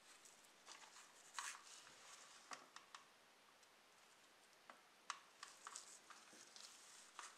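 Faint handling noise: gloved hands turning a rusty model car, giving scattered light clicks and rustles, the sharpest about a second and a half in and again about five seconds in.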